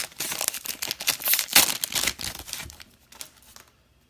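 Trading card pack wrapper being torn open and crinkled by hand, a dense crackling that dies away about three seconds in, leaving a few light clicks.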